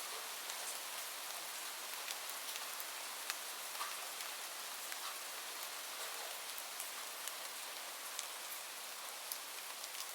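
Steady rainfall: an even hiss of rain with many separate drops ticking sharply on a hard surface.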